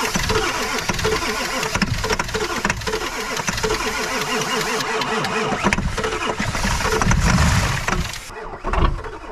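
Ford 7.3-litre V8 diesel engine cranking over on the starter in the cold, with ether sprayed into the intake, and failing to catch; the cranking stops near the end. The owner suspects the diesel fuel has gelled in the cold.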